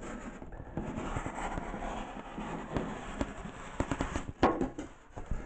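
Cutter knife slicing through a Styrodur extruded-polystyrene foam board, a continuous scratchy crackling with sharp cracks. The loudest cracks come a little after four seconds in, as the cut piece is bent away.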